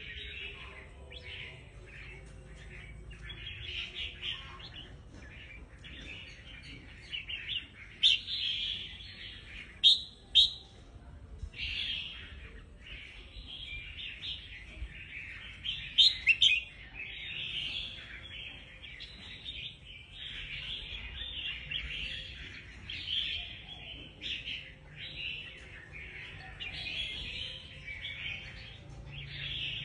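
Caged red-whiskered bulbul chirping and singing almost without pause in quick, bright phrases. A few much louder, sharp notes ring out about a quarter of the way in, a third of the way in, and just past halfway.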